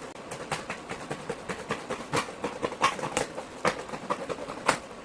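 A flap being cut off: an irregular run of crisp snips and crackles, several a second, with a few sharper ones about two, three and nearly five seconds in.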